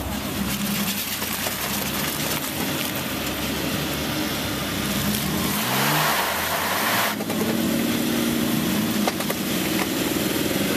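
Off-road vehicle engine revving under load during a tow-strap recovery. Its pitch climbs about halfway through, with a rush of noise, then holds at high revs.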